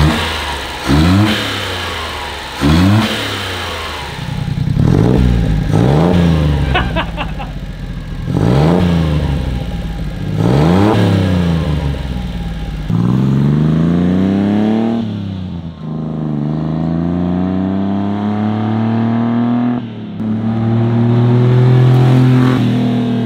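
Honda Acty's three-cylinder engine blipped in about six quick revs, each rising and falling. It then pulls away under acceleration, its pitch climbing steadily and dropping twice at gear changes.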